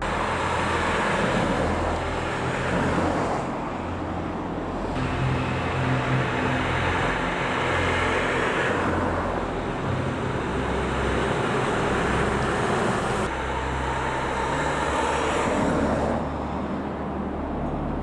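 Road traffic on a city street: several cars pass one after another, each swelling and fading, over a low engine hum.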